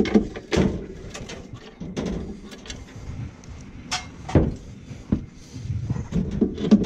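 Irregular metallic knocks, clunks and scrapes of a boiler's replacement inducer motor being handled and fitted into place, with a few louder clunks among them.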